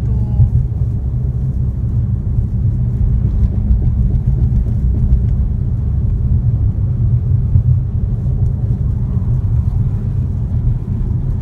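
Steady low rumble of road and wind noise heard inside a car moving at highway speed.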